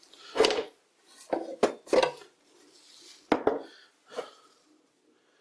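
Small metal lathe accessories knocking and clinking together as they are handled, a string of separate clanks with a brief metallic ring.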